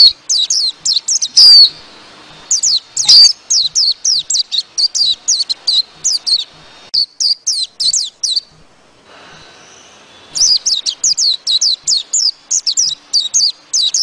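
White-eyes (chim khuyên) giving flock-calling chirps: a fast, continuous run of short, high, falling notes, with a few louder calls in the first three seconds. The chirping pauses for about two seconds past the middle and then resumes. This is the kind of flock call played as a lure to draw white-eyes in.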